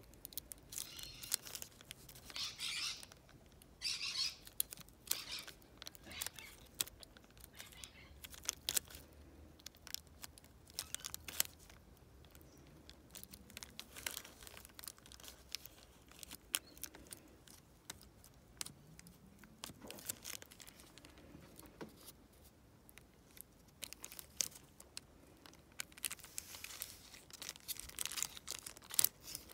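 Clear plastic wrapping crinkling and rustling as it is handled, with many small sharp clicks and taps throughout. The crinkling is loudest in a few short bursts early on and again near the end.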